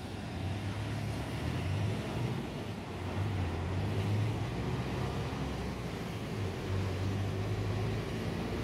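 Road traffic rumble, with a low engine hum that swells and fades several times.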